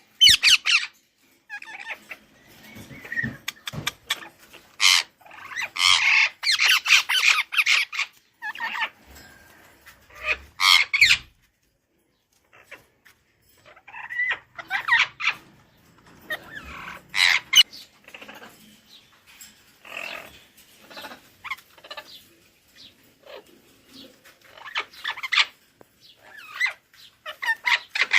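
Budgerigars chirping and squawking in bursts of rapid, scratchy chatter separated by short pauses.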